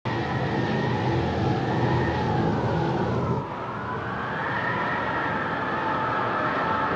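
Strong wind howling, with whistling tones that sink and then rise again in pitch, over a low rumble that drops away about three and a half seconds in.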